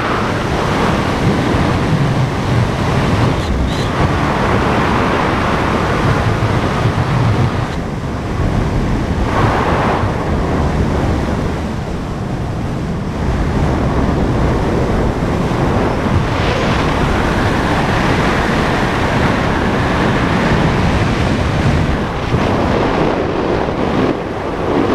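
Wind buffeting a helmet camera's microphone during a parachute descent under an open canopy: a steady, loud rushing noise.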